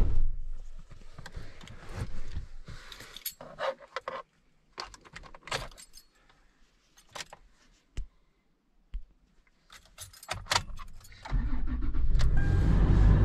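A car door shuts, then keys jingle and click in scattered bursts for several seconds. Near the end the Toyota SUV's engine starts and settles into a steady idle.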